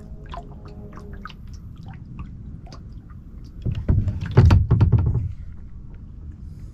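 Kayak being paddled on a lake: a steady low wind rumble with scattered light taps and drips. A burst of louder knocks and bumps comes a little under four seconds in and lasts about a second and a half.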